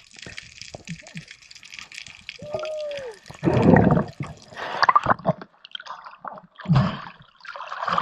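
Underwater sound through a diver's camera: a steady hiss with bubbling and gurgling water, broken by several muffled rushes, and a short pitched squeal that rises and falls about two and a half seconds in.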